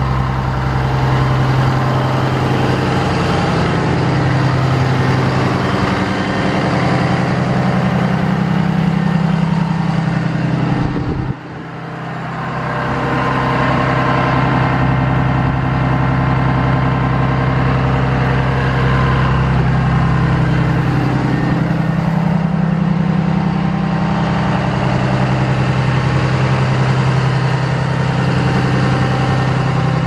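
A 2011 Blue Bird Vision school bus engine idling steadily, with a brief dip in level about eleven seconds in.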